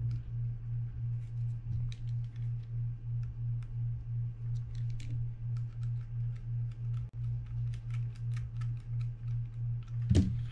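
Faint, scattered small clicks of a mini screwdriver and metal reel parts as the screw holding the bail wire to a Daiwa BG30 spinning reel's bail arm is driven in, with a louder knock near the end. Under it runs a steady low hum that pulses about three times a second.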